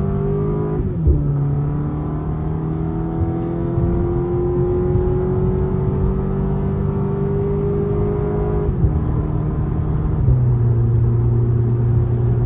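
2020 Audi S3's turbocharged 2.0-litre four-cylinder engine accelerating hard, heard from inside the cabin. The engine note climbs and drops at an upshift about a second in, then climbs slowly for several seconds. It drops again at another shift about nine seconds in and steps down once more a second later.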